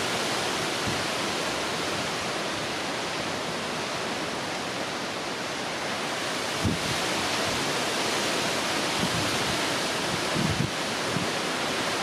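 Steady, even hiss of strong wind and choppy sea, with gusts buffeting the microphone in brief low thumps about seven seconds in and a few times near the end.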